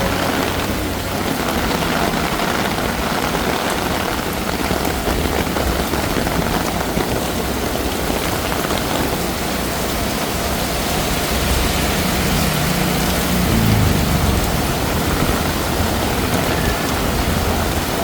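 Heavy monsoon rain pouring steadily, a dense even hiss of downpour.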